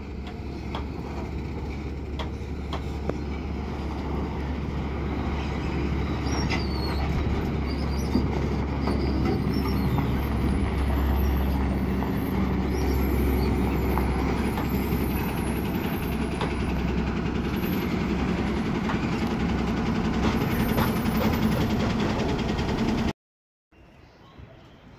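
Ashok Leyland container truck's diesel engine running as the truck drives across open ground toward the listener, a low drone that grows louder as it comes closer. It cuts off suddenly near the end.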